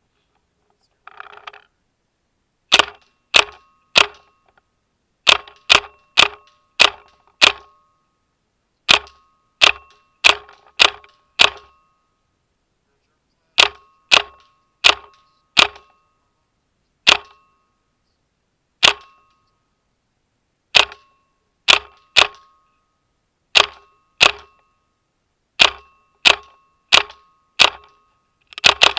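Planet Eclipse LV1 paintball marker firing single shots heard close up, each a sharp pop with a brief ring. The shots come in short strings of two to five at about two a second, separated by pauses of a second or two, and a faster string starts at the very end.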